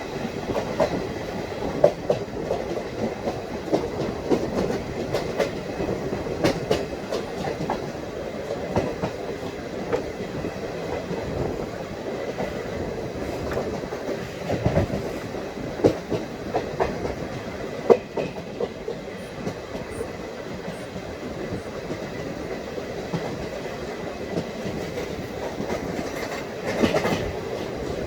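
ICF passenger coaches running along the track: a steady rumble of wheels on rail with irregular clickety-clack as the wheels pass over rail joints, and a few sharper knocks.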